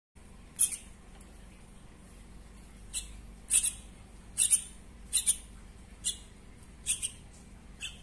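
A baby bird giving short, high-pitched begging chirps with its beak gaping for food, about ten in all, several in quick pairs.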